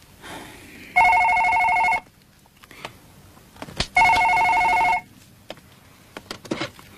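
Telephone ringing twice: two warbling electronic rings, each about a second long, three seconds apart.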